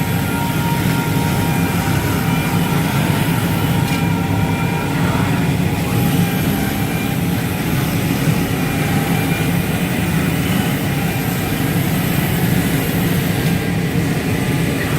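Automatic CAM fabric-cutting machine running: a steady, loud mechanical drone with a low hum and whining tones that shift. A high whine drops out about four seconds in, returns a couple of seconds later and stops again near the end.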